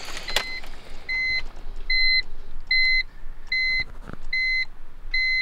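BMW E46 M3's dashboard warning chime, a high beep repeating evenly about every 0.8 seconds, set off with the ignition switched on and the driver's door open. A click from the key turning comes just before the first beep.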